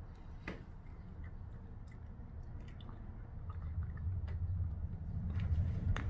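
A cat crunching dry kibble from a stainless steel bowl: a scatter of short, crisp crunches, over a low hum that grows louder near the end.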